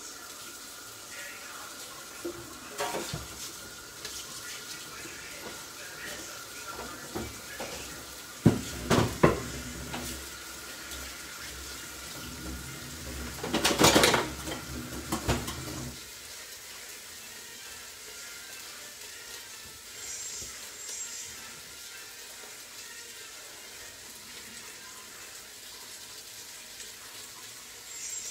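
Pots and utensils clattering and knocking in a few bursts, loudest about a third of the way in and again around halfway, over the steady sizzle of vegetables and fish heads browning in a pot.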